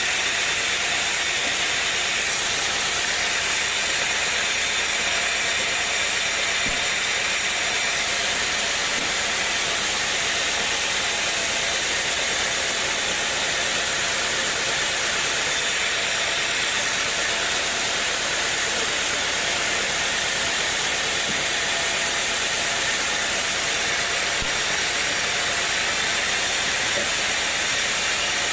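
Sawmill machinery running with a loud, unchanging hissing noise and a faint steady whine underneath.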